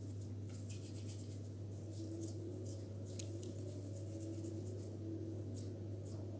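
Hands pinching and rolling crumbly chocolate pudding cookie dough between the palms: soft rubbing with scattered faint ticks, over a steady low hum.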